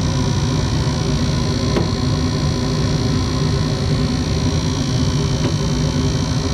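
Frigidaire Nordyne gas furnace running on heat with its new gas valve: a steady hum and rush from the inducer motor and the lit burners. Two faint clicks come about two seconds and five and a half seconds in.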